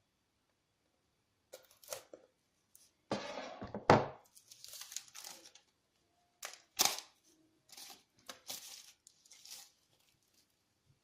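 Packaging being handled and opened: scattered rustles and crinkles, a louder tearing rip about three seconds in, and a few light knocks.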